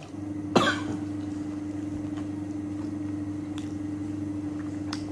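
A steady low electrical hum starts abruptly and stops about five seconds later, with a sharp click about half a second in.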